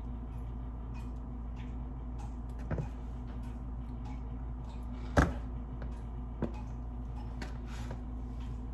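A steady low hum with three short knocks or taps over it, the sharpest one about five seconds in.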